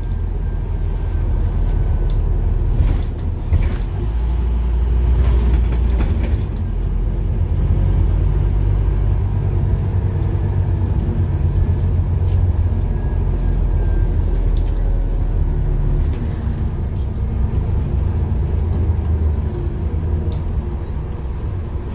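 Scania N230UD double-decker bus heard on board while under way: a steady low rumble from the engine and drivetrain, with a few sharp knocks and rattles from the bodywork and fittings in the first few seconds. The engine note eases about three-quarters of the way through.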